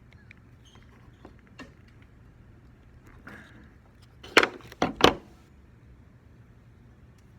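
Hard objects being handled: a few light clicks and a short rustle, then three sharp knocks within about a second.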